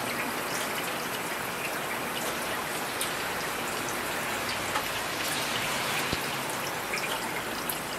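Heavy rain falling steadily: a dense, even hiss of rain with scattered sharper drop ticks.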